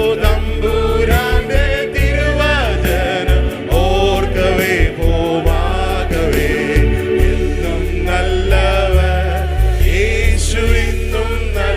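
Malayalam Christian worship song: singing over a band with sustained bass and drums.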